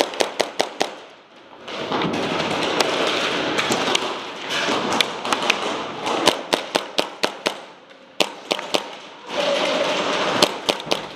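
Airsoft guns firing in quick runs of sharp cracks, several a second, with a rushing noise in the gaps between the runs.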